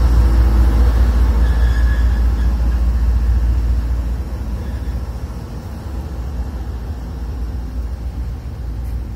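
Diesel locomotives of a CN freight train running slowly past, a deep engine rumble that drops off about four seconds in as the locomotives move on and the freight cars follow.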